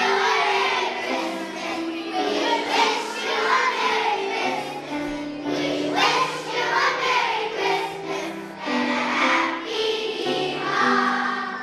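A children's choir singing a song together with piano accompaniment.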